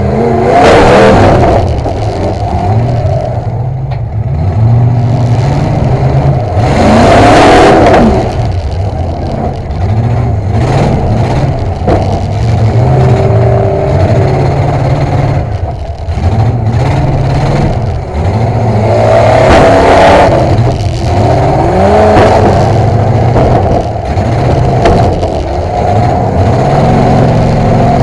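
A demolition derby car's engine, heard from inside the stripped cab, revving up and backing off again and again as it is driven. There are loud full-throttle surges about a second in, around seven to eight seconds in, and near twenty seconds.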